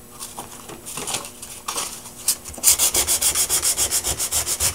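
Sandpaper lightly sanding a freshly glued wood veneer repair. A few soft, scattered strokes come first, then about two and a half seconds in, quick even back-and-forth strokes at about five a second.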